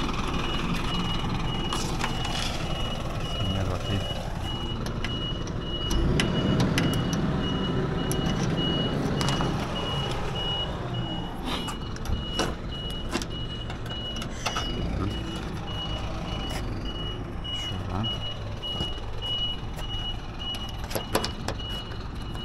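A vehicle reversing alarm beeping steadily with high, evenly spaced beeps over a heavy engine running low. Scattered knocks and clatter come and go.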